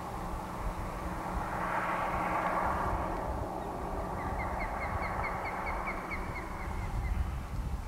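Roadside outdoor ambience: a rushing noise swells and fades over the first few seconds, like a vehicle passing, and about halfway through a bird gives a quick run of a dozen or so short chirps.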